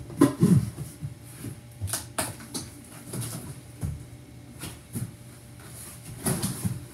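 Cardboard packaging being handled: an accessory box opened and its contents lifted out, with scattered light knocks, scrapes and rustles of cardboard and paper.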